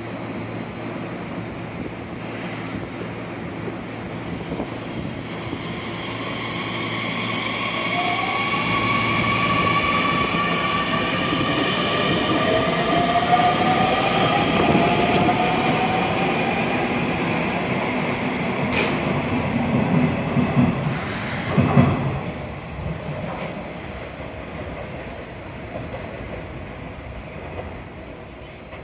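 Nishitetsu electric commuter train moving through the station, with a whine that rises in pitch and steady squealing tones over the running noise. The sound swells to its loudest midway. A few sharp clunks come near the end.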